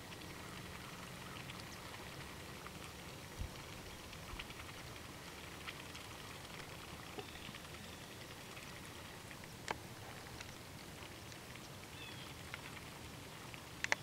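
Light rain pattering: a faint steady hiss with scattered drops ticking, a few of them louder single taps.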